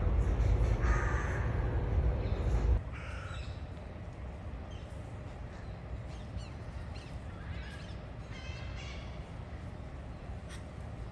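Outdoor ambience with a loud low rumble that cuts off abruptly about three seconds in, then a quieter background with scattered bird calls, crow-like caws and a short rattling call a little after the middle.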